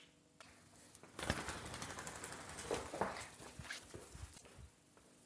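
Soft rustling and light handling noises with a few faint knocks, as the camera is picked up and moved.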